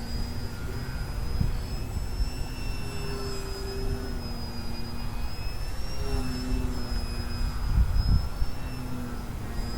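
Brushless electric motor and propeller of a small foam 3D RC airplane whining in flight, the pitch wavering up and down with the throttle. Beneath it a low wind rumble on the microphone, with stronger gusts about a second and a half in and again near eight seconds.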